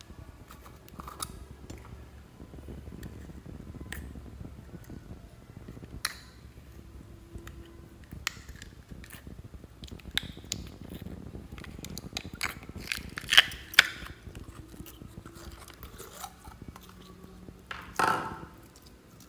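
Clear jelly slime being worked out of a plastic jar: scattered clicks and taps of the plastic jar and lid, with two sharp, loud clicks about two-thirds of the way through. Near the end a louder wet squelch as the slime comes free of the jar.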